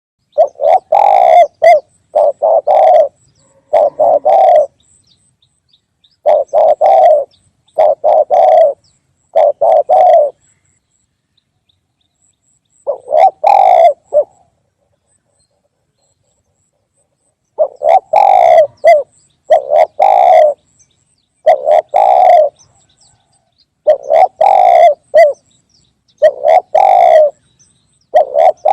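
Spotted dove cooing: a recorded call played as a lure, in repeated phrases of several coos with short silent gaps between them and one longer pause of a few seconds past the middle.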